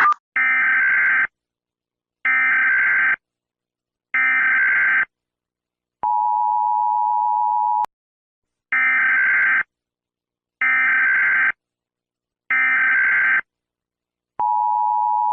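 Emergency Alert System activation tones. Three short screeching SAME header data bursts about a second apart are followed by the steady two-note attention signal for about two seconds. The same pattern repeats, with the attention tone starting again near the end.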